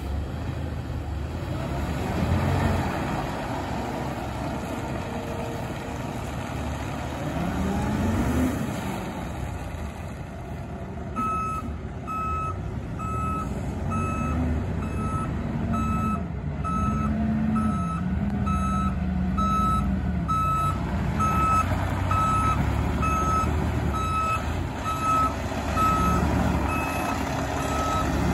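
Dennis Eagle Elite 6 side-loader garbage truck's diesel engine running as it manoeuvres, its note rising about eight seconds in. From about eleven seconds in, its reversing alarm beeps steadily, about one and a half beeps a second, as the truck backs up.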